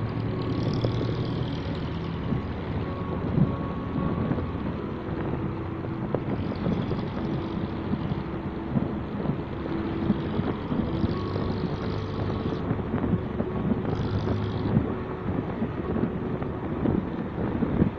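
Motorcycle riding along a road, its engine running at a steady pace under rough wind and road noise on the microphone, with a few short rushes of hiss.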